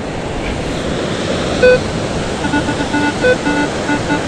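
Metal detector beeping over a buried coin target: one short beep about a second and a half in, then a rapid run of repeated short beeps, about four or five a second, from about two and a half seconds in. Steady surf and wind noise behind it.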